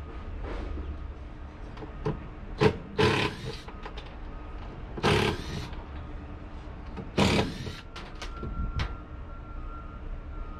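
A steady low engine rumble, broken by about six sudden loud clatters and scrapes, the longest lasting about half a second each, a little after five and seven seconds in.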